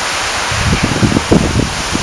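Wind buffeting the microphone: irregular low rumbles start about half a second in, over a steady rushing hiss.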